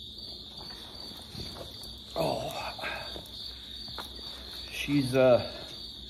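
Insects trilling steadily at a high pitch, with a short voice sound from a man about five seconds in.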